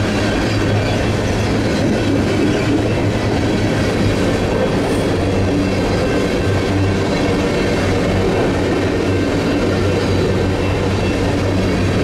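Covered grain hopper cars of a freight train rolling past at close range, their steel wheels running steadily on the rails.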